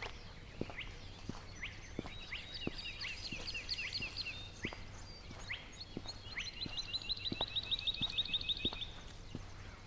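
A songbird singing two long runs of rapid, evenly repeated high notes, about eight a second, the second run louder. Underneath, a walker's footsteps on the dirt track keep up a faint steady pace.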